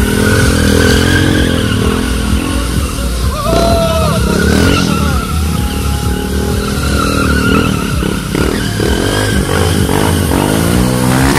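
A stunt motorcycle's engine revs up and down repeatedly while its rear tyre skids and squeals on the pavement during spinning and wheelie tricks. Loud background music with a steady beat plays underneath.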